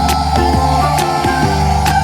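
Background music with a steady beat of about two strokes a second and plucked, guitar-like notes, over a loud steady hiss.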